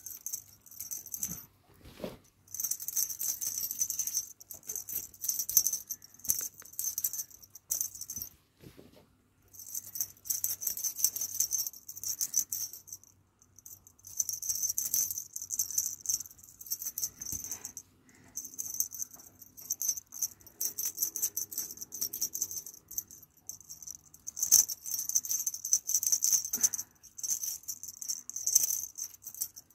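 Small metal bells on a feather wand cat toy jingling and rattling in repeated shaken bursts of a few seconds each, with short pauses between them.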